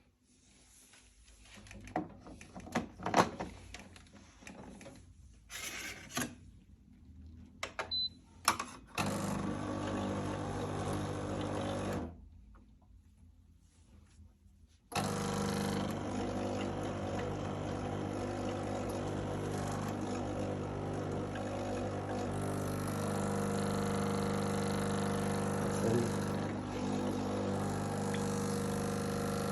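BlitzHome BH-CM1503 espresso machine: a few clicks and knocks from handling the machine, then its pump buzzes steadily for about three seconds, stops, and starts again about three seconds later, buzzing steadily from then on. The owner says the machine is not working properly.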